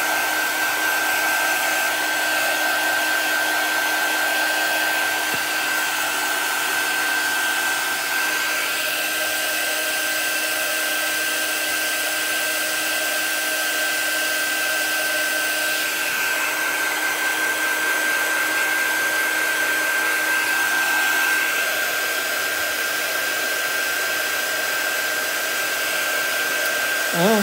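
Handheld craft heat tool (embossing heat gun) running steadily, an even blowing whir with a steady high whine, drying wet chalk paste.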